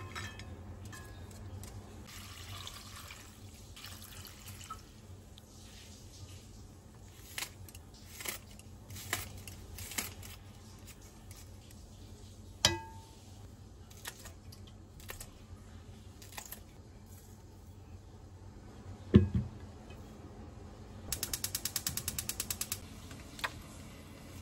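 Kitchen work: scattered light knocks and clatter of utensils against a pot, and a heavy thump about three-quarters of the way through. Near the end a gas stove burner's igniter clicks rapidly, about a dozen clicks a second, for under two seconds.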